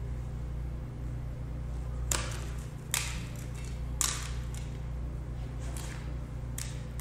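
A few short crisp snaps and rustles as the large communion wafer is broken and the chalice and bread are handled on the altar, over a steady low hum.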